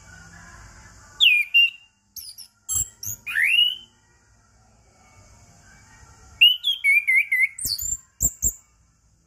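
Orange-headed thrush singing: two bursts of loud, varied whistled phrases with quick gliding notes, separated by a few seconds' pause, with several sharp clicks near the end of the second burst.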